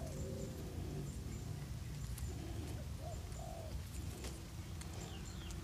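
A dove cooing faintly in the background, with a few light clicks from the aluminium wire as it is wrapped around a bonsai branch.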